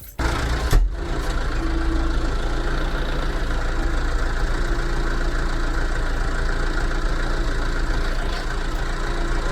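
JCB machine's diesel engine idling steadily. It comes in abruptly just after the start, with a single knock under a second in.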